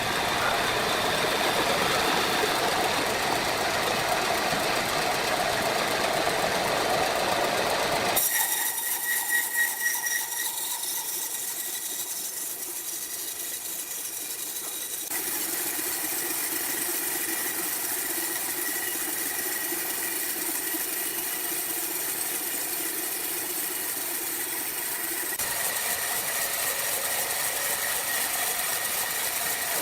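Sawmill machinery running: a steady mechanical din that changes character abruptly about eight seconds in, again near fifteen seconds and near twenty-five seconds.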